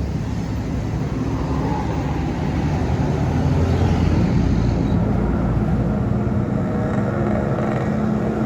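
A motor vehicle's engine running with a low, steady hum, growing louder over the first few seconds as it draws near, then holding steady.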